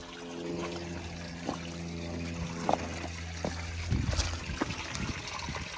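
Jeep Wrangler engine idling steadily, its hum dropping away about four seconds in, with water trickling among rocks and footsteps knocking on loose stones.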